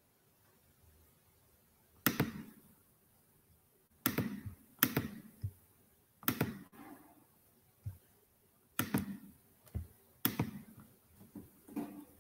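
Irregular clicks and knocks, about a dozen of them starting some two seconds in, from someone working at a computer close to an open microphone, heard through a video-conference feed.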